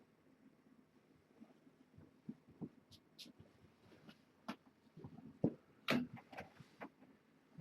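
Irregular soft knocks and clicks, sparse at first and coming thicker and louder about halfway through.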